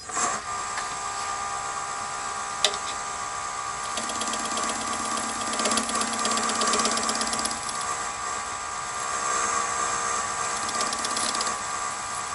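Nova DVR-XP wood lathe switching on and running with a steady motor whine, with a single sharp click about two and a half seconds in. A hand-held turning tool cuts into the spinning disc of plastic cutting board in two stretches, adding a rough, fluttering scraping over the whine.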